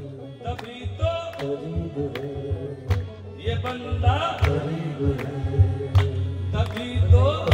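Sufi devotional song: a singer's voice in bending, melismatic lines over a steady low accompaniment, with sharp percussion beats about two to three times a second.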